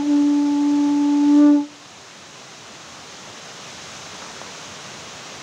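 A horn-type wind instrument blown in one long, steady note that cuts off about a second and a half in. After it, only a steady faint hiss remains.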